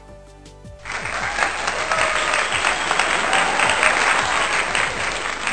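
Loud applause, likely an added sound effect, starting about a second in over background music.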